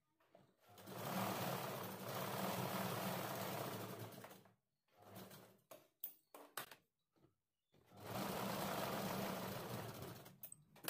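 Sewing machine stitching a seam in two steady runs of about three seconds each, with a few short bursts and clicks in the gap between them.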